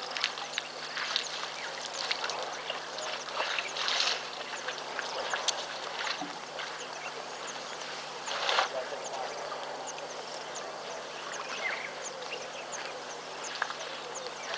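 Birds calling around a waterhole: many short scattered calls, with louder, duck-like calls about four and eight and a half seconds in, over a steady outdoor hiss and a faint low hum.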